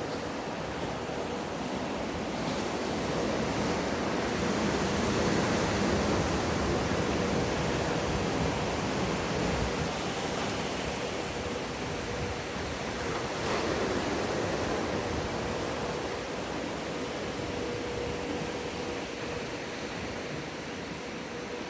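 Water in an artificial wave pool surging and breaking, a steady wash of noise that swells a few seconds in and again about two-thirds through, over a faint steady hum.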